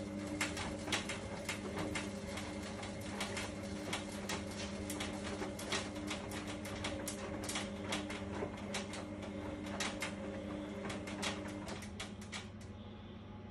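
Drum of an Indesit washer dryer turning on its motor: a steady hum with frequent irregular clicks and knocks, which stops about 12 seconds in. The machine is nearly nine years old and failing.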